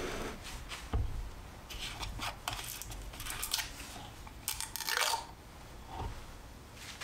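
Screw cap of a plastic chemical bottle being twisted open, giving runs of crisp clicks and crackles, with a couple of dull knocks as the bottle touches the bench.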